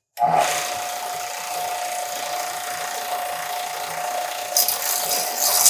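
Benchtop belt sander starting up suddenly and running with a steady whine, a metal pipe edge being ground on the belt. The grinding gets louder and hissier from about four and a half seconds in.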